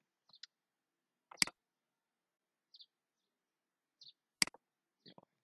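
Computer mouse button clicks: two sharp clicks about three seconds apart, with a few faint small ticks in between.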